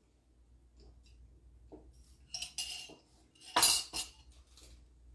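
Faint sipping of water through a straw, then a glass jar set down on a granite countertop with a sharp knock about three and a half seconds in, followed by a lighter clink.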